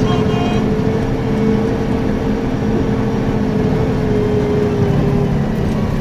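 BMC Fatih truck's diesel engine running steadily at an even speed on a gravel road, a constant drone mixed with tyre and road noise.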